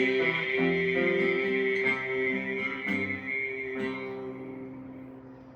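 Guitar playing the closing chords of a folk song: a few picked chords about a second apart, each left ringing, fading away toward the end.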